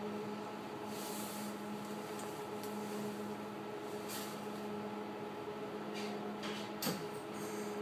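Steady electrical hum inside a Docklands Light Railway train standing at a platform, its onboard equipment running at a constant pitch. A few soft hisses come and go, and there is one sharp click about seven seconds in.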